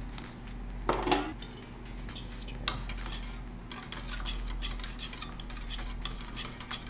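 Irregular light clinks and scrapes of metal tools against tins and dishes, over a steady low hum, with a brief squeak about a second in.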